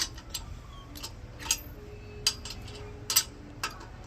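About six sharp metallic clicks and clinks at irregular intervals, the loudest a little after three seconds in, as a car wheel is remounted and its lug nuts are put back on and tightened.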